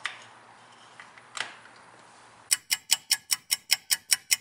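Two single clicks, then from about halfway through a rapid, even mechanical clicking at about six clicks a second, from hands working at a golf cart's dash wiring.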